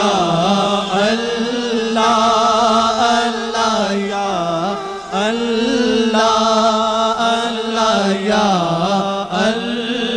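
Background devotional singing: an Urdu naat sung by one voice in long held notes that bend and waver in pitch.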